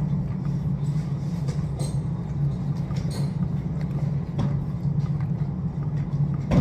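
Steady low drone of a vehicle running, with a few faint clicks and rattles over it.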